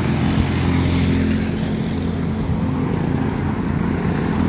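Street traffic with a vehicle engine running close by, a steady low hum throughout.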